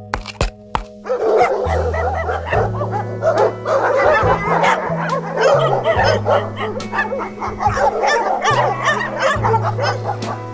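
Two dogs play-fighting, making rapid high-pitched yips and whines that start about a second in and thin out near the end, over background music with a steady bass line and beat.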